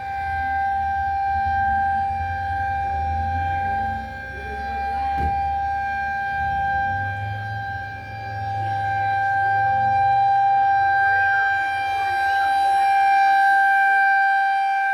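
Federal Signal 2001-130 outdoor warning siren sounding a steady single tone during its test. Its loudness swells and dips as the rotating siren turns.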